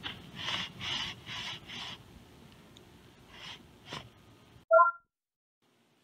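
Pro Plugger lawn-plugging tool being worked and pulled out of dense Bermuda turf: rasping scrapes of the tube against grass and soil, four quick ones in the first two seconds and two more a little later. Near the end a short, loud three-note electronic beep, and the sound cuts off abruptly.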